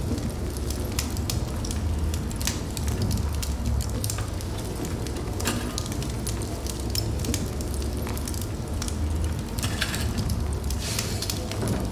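Wood fire burning in a fireplace: a steady low rumble of flames with frequent irregular crackles and pops, and a couple of brief hissing flares.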